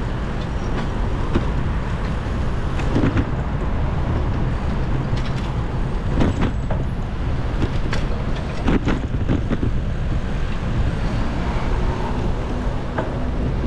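Steady street traffic and road noise heard from a moving bicycle, heaviest in the low rumble, with a few short sharp knocks about 3, 6 and 9 seconds in.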